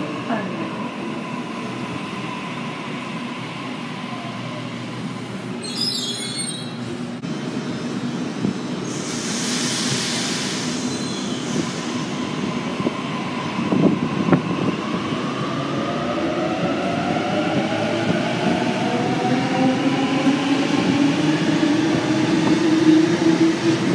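Sydney Trains Waratah electric multiple units pulling away from the platform: steady running noise from the wheels and rails, a burst of hiss about ten seconds in, then the traction motors whining and rising in pitch as the train accelerates through the second half.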